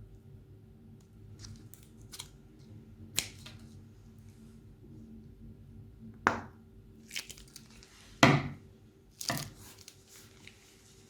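Slime being worked out of plastic piping bags: a handful of short, sharp squelches and crinkles, the loudest about eight seconds in.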